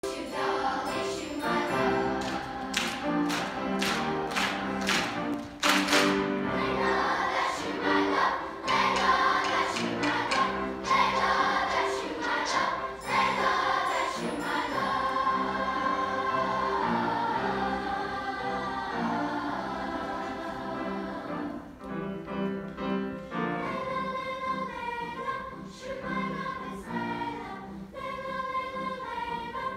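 Large children's choir singing in unison and harmony, with a run of sharp percussive hits over the first six seconds or so.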